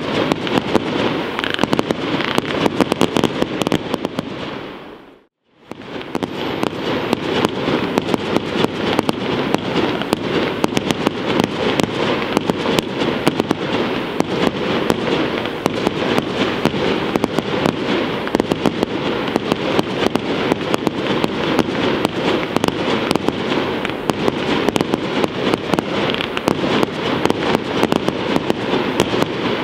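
Aerial fireworks display going off continuously: shell bursts and a dense, rapid run of sharp pops and crackles, many a second. The sound fades out to silence for a moment about five seconds in, then comes back.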